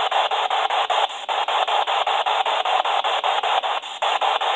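PSB-7 spirit box sweeping down through the FM radio band, giving a steady radio static hiss chopped into rapid even steps, about eight a second, as it jumps from station to station. The static dips briefly about a second in and again near the end.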